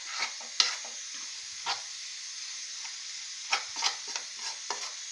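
Mutton pepper chops sizzling in a pan on a low flame as the liquid cooks down, with a spoon scraping and knocking against the pan a few times while stirring, in small clusters early and near the end.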